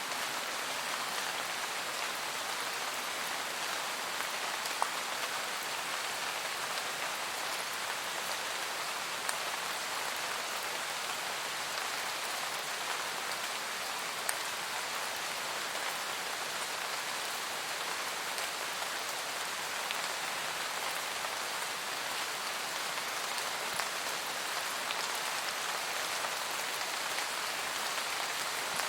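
Steady rain falling on forest foliage, an even patter with a few louder individual drops.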